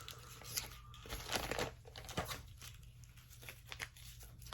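Light crinkling and rustling of something being handled, with scattered small clicks.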